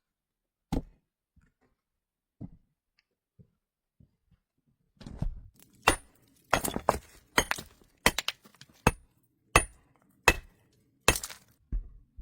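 A few light knocks, then from about five seconds in a quick run of sharp clinks and knocks between hard objects, some with a brief ringing.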